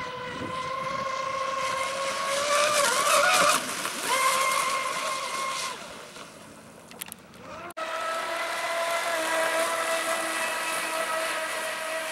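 Twin brushless motors of a Pro Boat Zelos 36 RC catamaran whining at high speed on 6S LiPo as it planes across the water. The pitch wavers as it turns and is loudest a few seconds in. The whine fades away around six seconds in, then comes back steady after a sudden break.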